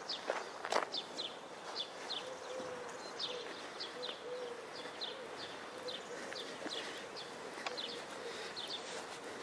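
A small songbird calling with short, high, falling chirps about twice a second, repeated steadily, with a couple of footsteps near the start.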